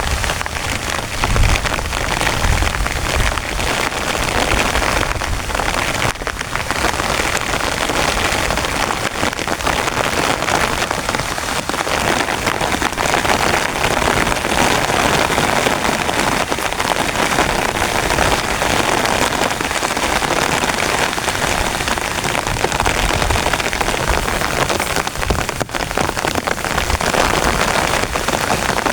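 Heavy rain pelting a tent, a steady dense patter with a few brief low rumbles in the first few seconds.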